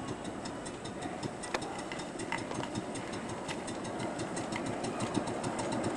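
A 1-inch-scale live steam locomotive hauling riders, chuffing in a rapid, regular beat with clicking from the train running on the track.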